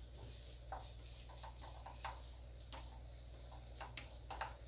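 A spatula stirring a thick gravy with fenugreek leaves and peas in a non-stick kadhai, tapping and scraping against the pan in short ticks at uneven intervals over a faint frying hiss.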